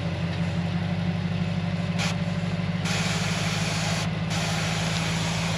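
Nissan Y62 Patrol driving on a rough, corrugated dirt road: a steady low drone of engine and tyres with a fast continuous judder from the corrugations, over a hiss of road noise.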